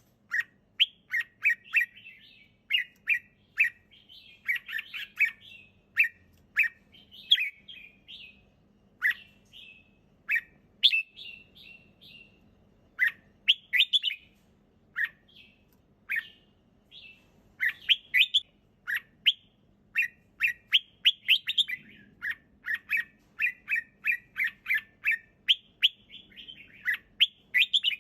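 Red-whiskered bulbul singing: short, bright chirping phrases repeated again and again with brief pauses between them.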